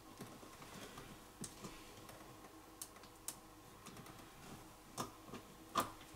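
Faint, scattered clicks and taps of needle-nose pliers working stranded electrical wires in a wall switch box, bending and tucking them in. The loudest click comes near the end.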